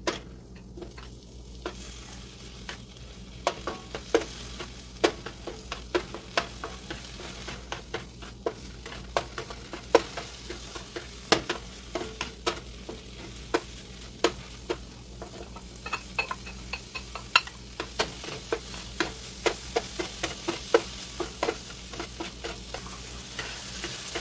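Diced sausage, onion, red pepper and tomato sizzling in a nonstick frying pan while a plastic spatula stirs them, knocking and scraping on the pan in frequent short clicks. The sizzling grows louder after about three-quarters of the way through.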